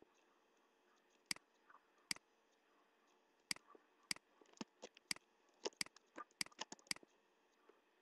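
Computer mouse buttons clicking: a dozen or so sharp, faint, irregular clicks, coming thickest after about three and a half seconds.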